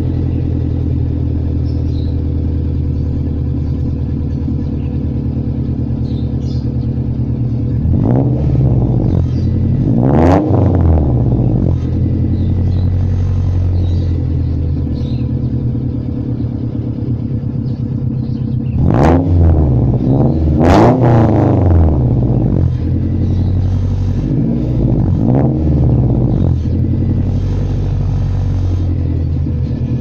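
Car engine breathing through a 4-1 header, straight pipe and Spoon N1 muffler, idling steadily and blipped up and down several times: a pair of revs about eight and ten seconds in, two sharp higher revs around nineteen and twenty-one seconds, and two smaller blips a few seconds later.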